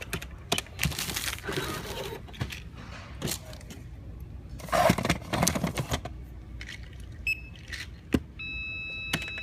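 Boxes being handled, rattling and clattering, loudest about five seconds in. Then a brief run of electronic pips, and near the end a steady electronic beep tone starts and keeps going.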